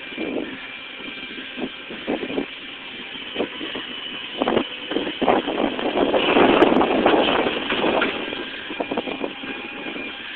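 Recycling truck working, its machinery running steadily under a series of knocks and clatters, with a longer, louder rushing clatter about six to eight seconds in.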